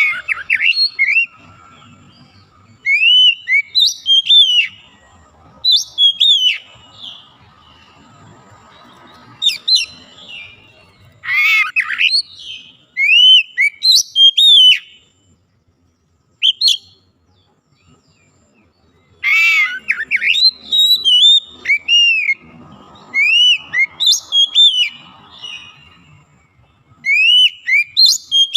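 Oriental magpie-robin singing: phrases of short, clear, arching whistled notes in bursts of a second or two with pauses between them. A few phrases open with a louder, harsher note.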